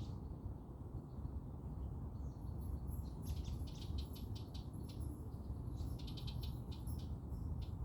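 Small birds chirping in rapid trills, two bursts about three and six seconds in, over a steady low rumble and a thin, steady high tone.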